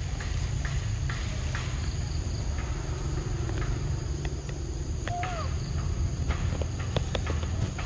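Outdoor forest ambience: a steady high insect drone over a constant low rumble, with scattered small clicks and a short chirp about five seconds in.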